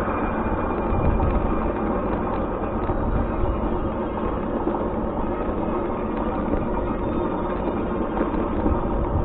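Steady vehicle rumble: engine and road noise running evenly, with no distinct events.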